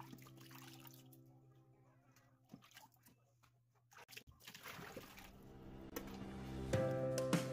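Water sloshing in a glass bowl as a hand rinses raw chicken, then the water tipped out into a stainless steel sink with a splashing rush. Background music with held notes fades out in the first couple of seconds and comes back near the end.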